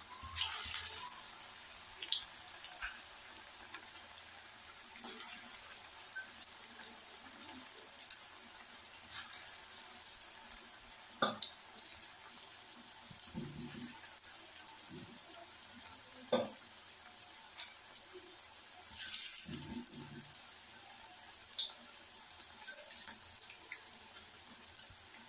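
Cabbage pakoras deep-frying in hot oil in a kadhai on a low flame: a steady soft sizzle, with a few short knocks and clicks as more spoonfuls of batter go in.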